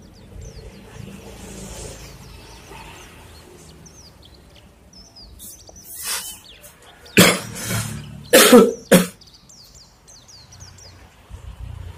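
A person coughing: a weak cough and then a quick series of three loud coughs around the middle, with small birds chirping in the background.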